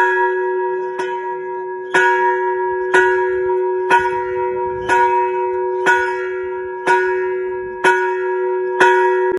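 Pilgrims' summit bell struck over and over, about once a second, ten strikes in all, each strike ringing on into the next.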